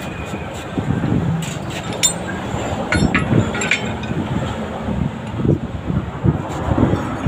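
Outdoor roadside noise with wind buffeting the microphone and a few light metallic clinks, mostly in the middle of the stretch.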